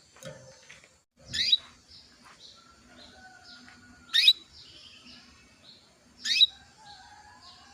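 Female domestic canary calling: three loud, short chirps about two to three seconds apart, with softer twittering between them. These are a female in breeding condition calling for a male.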